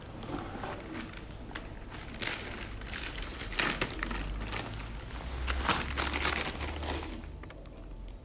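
Rapid, irregular rustling and crinkling of something being handled and rummaged through, busiest from about two to seven seconds in, over a low steady hum.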